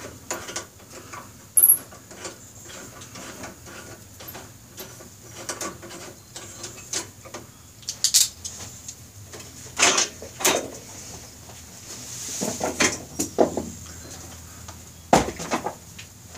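Hands working a chopper's seat mount: small metal clicks and taps as the fastener is undone and redone, with a handful of sharp knocks and a short scraping stretch as one seat is lifted off the frame and another set on.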